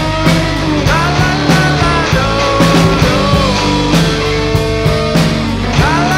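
Live rock band playing an instrumental passage with a steady drum beat, bass and electric guitar. A harmonica lead line bends up and down in pitch over the top.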